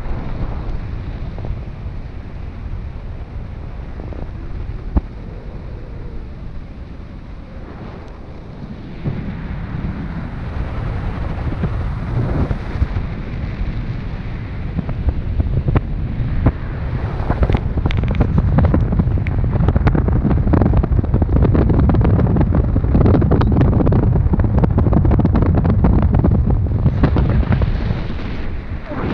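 Wind buffeting the microphone of a camera in paraglider flight: a steady low rumble that grows louder about nine seconds in and again near the middle, with many short crackles over it.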